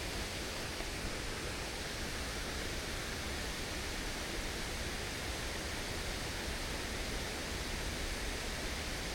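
Rushing water of a snowmelt-swollen stream and waterfall: a steady, even hiss.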